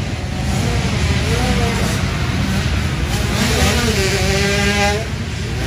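Small two-stroke 65cc motocross bikes racing, engines revving up and down as the riders accelerate and back off, over a dense low rumble of several bikes. A high-pitched rev is held for about a second near the end, then drops.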